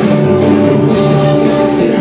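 Live band playing a folk-rock song at full volume in an instrumental stretch, with guitar and violin over drums.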